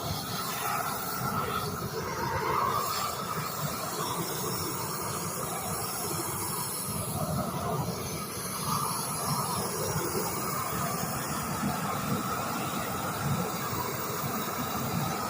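Propane torch flame burning steadily with a continuous hiss as it scorches a carved wooden surface.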